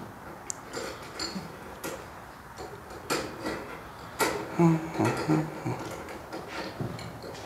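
Scattered light clicks and taps of steel brake line being handled and worked in a small hand tube bender. The loudest part is a cluster about five seconds in that holds a couple of brief low-pitched tones.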